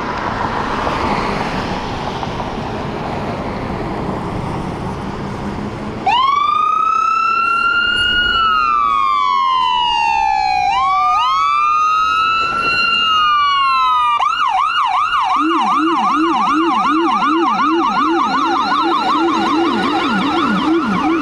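Vehicle engine noise. About six seconds in, an ambulance's electronic siren starts with a slow wail that rises and falls, then switches to a fast yelp. Soon after, a second, much lower-pitched yelp sounds along with it.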